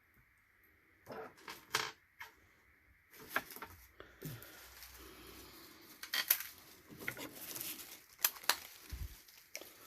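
Scattered small clinks and clicks of costume jewelry being handled, with faint rustling, such as a small bag being opened.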